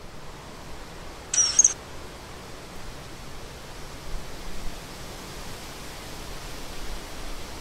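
Common kingfisher giving one short, high-pitched call about a second and a half in, over a steady background hiss.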